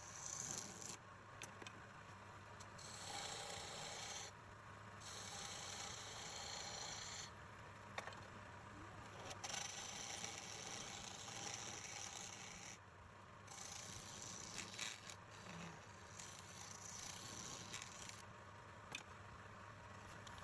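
Abrasive scraping and rubbing in long strokes of one to four seconds with short pauses between them, over a faint steady low hum.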